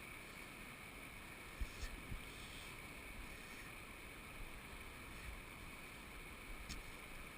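Steady rush of flowing river water, with a few faint ticks and clicks about two seconds in and again near the end.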